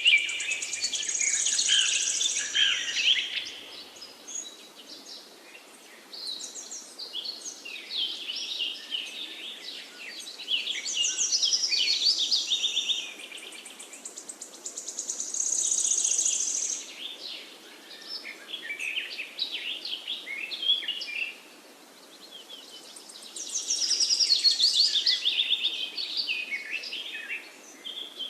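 Songbirds singing: quick trilled, chirping phrases a few seconds long that come again every few seconds, over a faint steady hiss of outdoor ambience.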